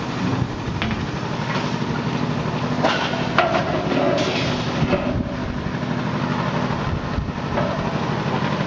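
A machine motor running steadily with a rapid low throb. A few metallic clanks and knocks from stainless-steel equipment being handled come about three to four seconds in.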